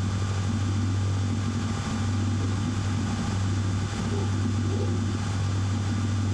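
A steady low hum with an even hiss over it, unchanging throughout, with no tapping strokes.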